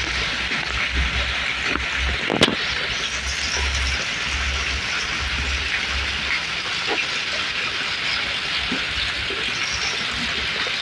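Heavy rain falling steadily, with one sharp tap about two and a half seconds in.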